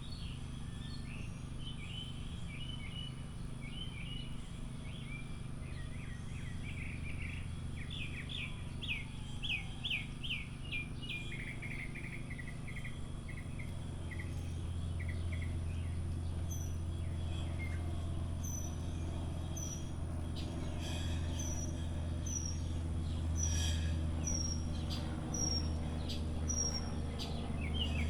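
Several wild songbirds chirping and calling, with a quick run of notes about a third of the way in. Over the second half one bird repeats a short high note about once a second, all over a steady low hum.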